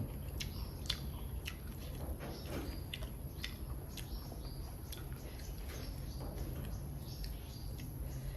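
Close-up eating sounds: chewing with wet mouth clicks and lip smacks, a string of short sharp clicks scattered irregularly, over a steady low hum.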